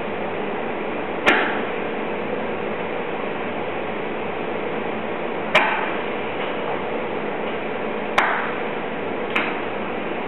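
Steady hiss of a glassblower's bench burner flame, with four sharp clicks that ring briefly: about a second in, about halfway, and twice near the end.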